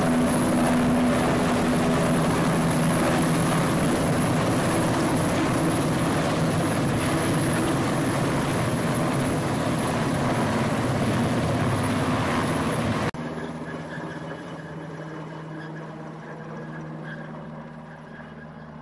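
Military helicopter hovering low while lifting an underslung cargo load, its rotor and turbine noise loud and steady. About thirteen seconds in the sound drops abruptly to the helicopter heard far off, flying away and fading.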